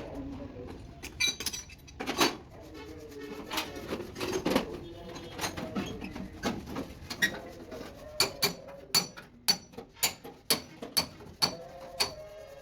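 Light metal-on-metal tapping and clinking, irregular at first, then a steady run of taps about two a second from about eight seconds in.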